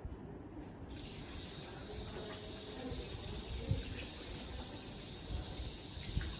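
Water running from a tap in a steady hiss that starts suddenly about a second in, with a couple of faint knocks.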